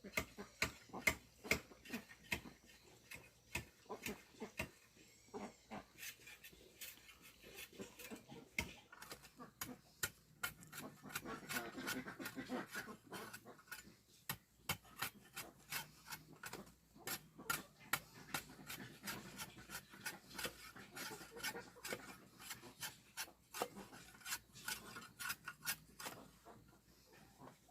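Hand-tool work: irregular scraping and knocking strokes, several a second, with a rasping, rubbing quality.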